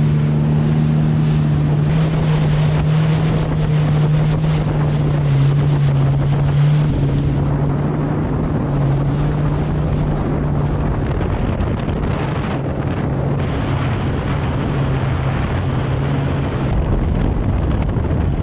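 A Yamaha SHO Cruiser WaveRunner's 1.8-litre supercharged four-stroke engine running steadily while under way, a low engine hum under heavy wind buffeting on the microphone and rushing water. The engine note weakens past the middle, leaving mostly wind and water.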